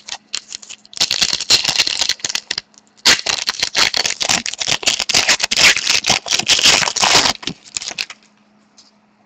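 Foil wrapper of a 2013-14 Totally Certified hockey card pack being torn open and crinkled by hand. It gives dense, clicky crackling from about a second in, with a short break near three seconds, that stops about seven seconds in.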